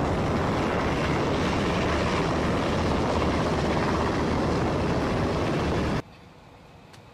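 Navy Seahawk helicopter flying past: loud, steady rotor and turbine noise with a heavy low rumble. It cuts off suddenly about six seconds in, leaving only a faint low background.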